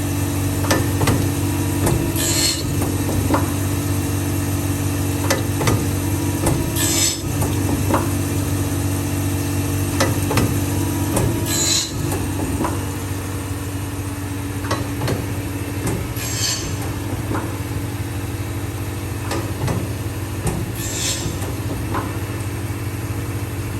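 CNC saw-blade sharpening machine grinding a carbide-tipped circular saw blade: a steady motor hum with frequent clicks and knocks of the mechanism, and a short hiss about every four and a half seconds.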